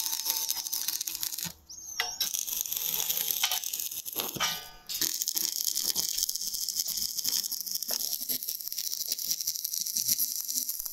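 Electric arc welding: a dense, steady crackle, stopping briefly twice.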